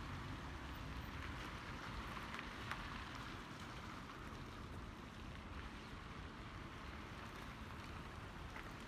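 Wet street ambience: a steady hiss of car tyres on a wet, slushy road, with a few faint scattered ticks.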